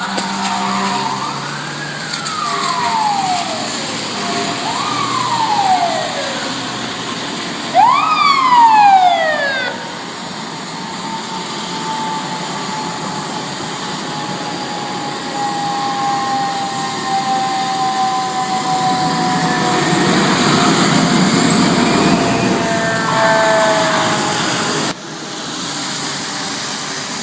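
Fire truck sirens responding: several wails that rise quickly and fall more slowly, then one long tone slowly falling as the siren winds down, with the truck engine running loudly near the end.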